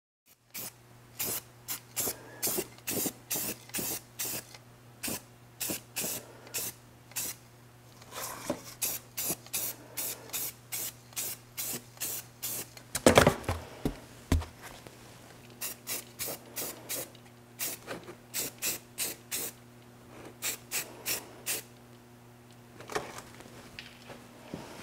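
Aerosol spray-paint can sprayed in many short bursts, roughly one to two a second with brief pauses, as black paint goes onto a truck frame. There is a louder clatter about halfway through and a steady low hum underneath.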